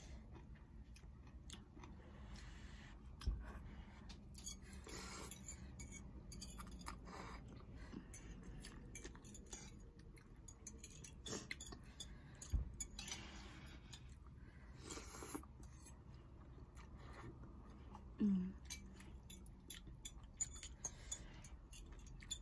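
Faint eating sounds of two people having Samyang spicy noodles: chewing, with scattered light clicks of metal forks against plates.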